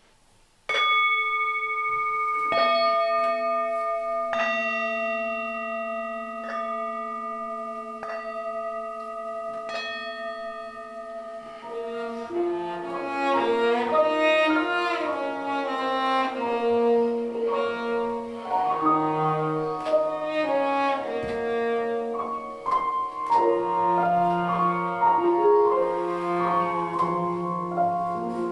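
Grand piano and cello playing a slow instrumental introduction: sustained chords struck about every two seconds, turning into a fuller, busier passage with moving lines from about twelve seconds in.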